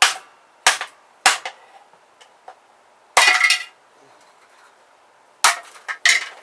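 A hammer tapping a large resistor to crack it open: three sharp taps in the first second and a half, a brief crunching rattle about three seconds in as it breaks, then two more taps near the end.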